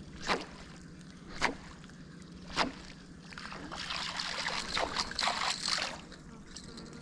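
Water splashes from a propeller surface lure being jerked across the water: three sharp splashes about a second apart, then a few seconds of continuous spluttering as it is retrieved fast.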